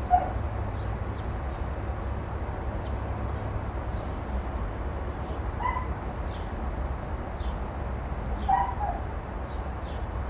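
A dog gives short, high-pitched yelping barks three times: the loudest right at the start, then two more about six and nine seconds in, over a steady low rumble.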